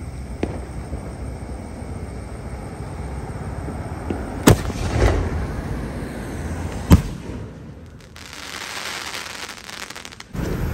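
Sky-shot aerial fireworks going off: two sharp bangs about two and a half seconds apart, the first followed by crackling, then a hiss near the end.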